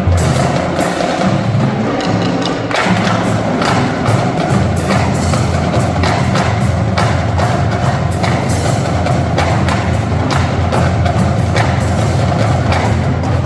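Marching drumline playing: rapid, dense drum strikes over a steady low bass-drum pulse.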